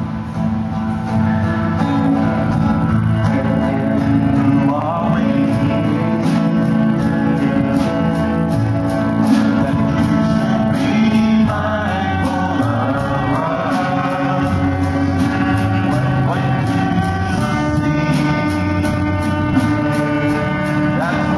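Live worship band music, mostly instrumental: guitars and keyboard playing a song passage with a steady beat, the singers mostly silent.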